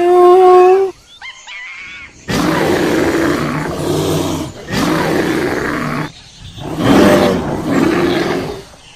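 Animal calls: a short clear pitched call at the start, then three long, rough roaring calls separated by short gaps.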